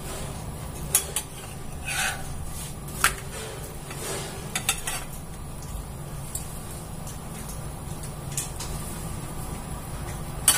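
Flat spatula scraping and tapping on a non-stick tawa as a thin dosa is loosened from the pan: a few separate sharp scrapes and clicks over a steady low hum.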